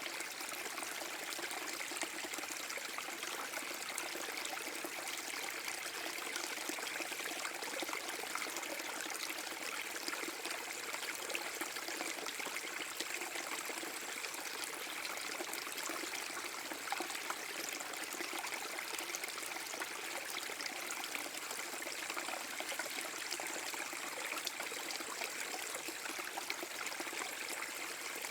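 Small forest brook waterfall: water pouring and trickling over rocks in a steady, unbroken splashing rush.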